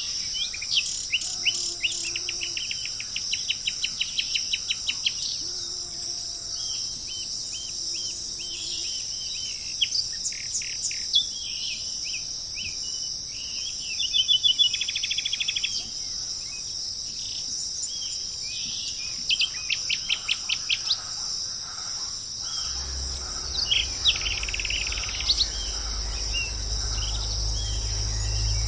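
Several birds singing and calling in short, repeated phrases and rapid trills over a steady, high-pitched chorus of insects. About three-quarters of the way through, a low rumble comes in suddenly and continues under the birds.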